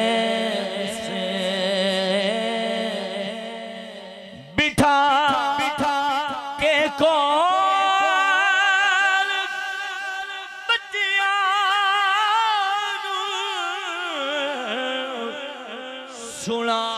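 A man singing a Punjabi naat unaccompanied, holding long, wavering, ornamented notes through a microphone. The phrase breaks off about four seconds in, and a new, higher line begins.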